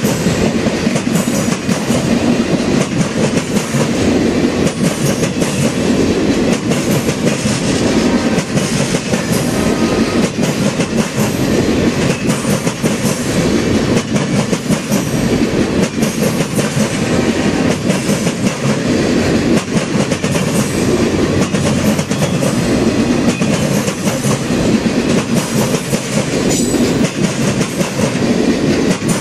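Passenger cars of the Ringling Bros. and Barnum & Bailey circus train rolling past close by: a loud, steady rumble with wheels clattering and clicking on the rails.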